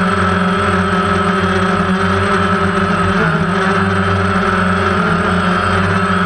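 Multirotor drone's electric motors and propellers running steadily, heard through its own onboard camera as a loud, even hum of several fixed pitches, with a brief slight pitch shift about three seconds in.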